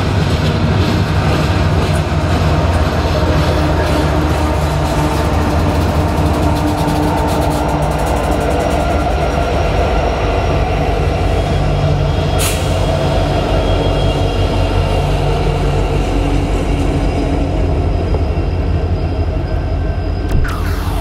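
Loaded coal hopper cars of a freight train rolling past with a steady rumble and a rapid clicking of wheels over the rail. About halfway through, the rear pair of diesel locomotives goes by with the low drone of their engines.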